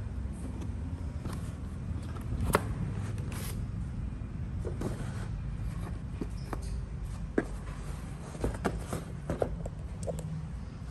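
Tissue-paper wrapping rustling and a laptop being lifted out of its cardboard box, with scattered clicks and taps of handling, the sharpest about two and a half seconds in. A steady low rumble lies underneath.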